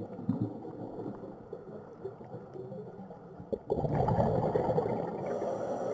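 Muffled underwater ambience picked up by a camera under water: a low rushing, crackling water noise that gets louder about four seconds in.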